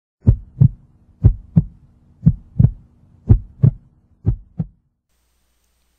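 Heartbeat sound effect: five double thumps, about one pair a second, over a low steady drone, stopping near the end.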